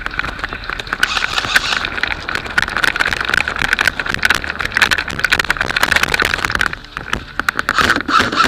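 Quick footsteps crunching on gravel and loose gear rattling as a player runs carrying a rifle, with a brief lull near the end before the rattle picks up again.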